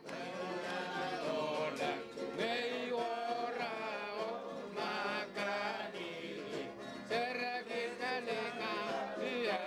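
A man singing a chant, his voice held in long phrases of a second or two that rise and fall in pitch.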